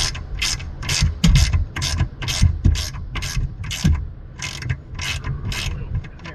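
A ratchet wrench worked back and forth on a bolt, its pawl clicking in quick strokes about three a second, stopping shortly before the end.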